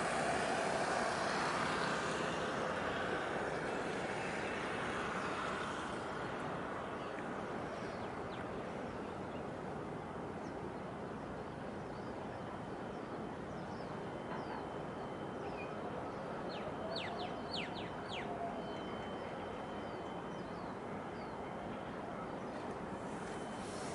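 Harbour-side outdoor ambience: a steady wash of noise with an engine drone that fades away over the first several seconds. A few short high chirps come a little past the middle.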